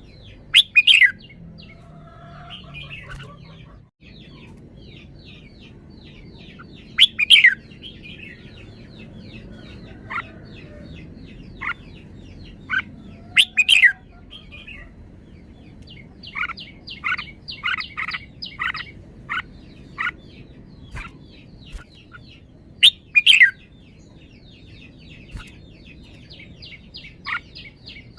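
Red-whiskered bulbul singing: short loud phrases about every six seconds, with a run of quick short notes in between, over a steady faint chatter of other birds.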